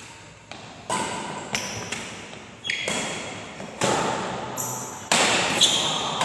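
Badminton rackets striking a shuttlecock back and forth in a doubles rally, about seven sharp hits roughly a second apart, each echoing in a large hall.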